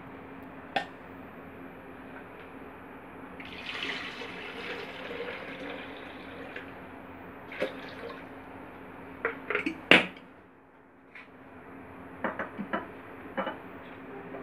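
Milk poured into a plastic blender jar, with a rushing pour for a few seconds. It is followed by a string of sharp knocks and clinks as the jar and dishes are handled, the loudest a knock about ten seconds in.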